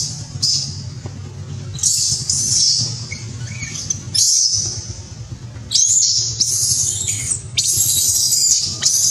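Infant long-tailed macaque screaming in repeated shrill, high-pitched bursts, each about half a second to a second long, the distress cries of a baby monkey.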